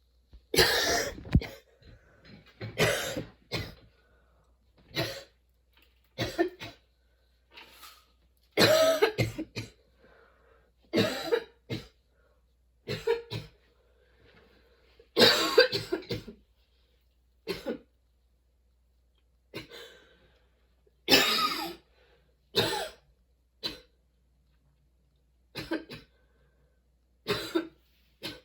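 A woman's prolonged coughing fit: coughs come singly or in quick clusters of two or three, every second or two, with short quiet pauses between them.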